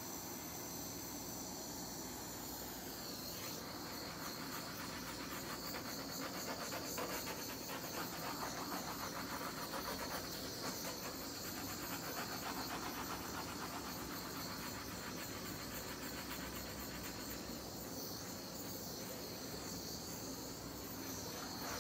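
Handheld gas torch flame hissing steadily as it is passed over wet acrylic pour paint to draw up cells and the gold layer beneath.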